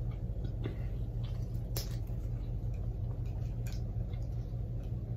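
Close-up chewing of a cheesesteak sandwich: scattered soft clicks and mouth smacks, over a steady low hum.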